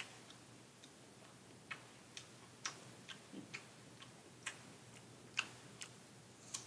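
Apple being chewed close to the microphone: irregular crisp crunches and wet clicks, one or two a second.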